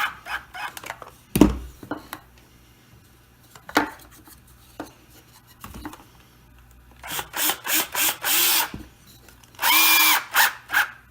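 Power drill driving screws into wood, running in several short bursts and then one longer run near the end, with a few knocks of the workpiece being handled earlier.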